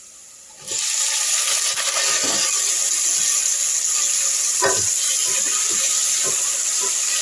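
Chopped tomatoes dropped into hot oil in a frying pan with fish, sizzling loudly. The hiss starts suddenly about a second in and stays steady, with a few faint knocks in the pan.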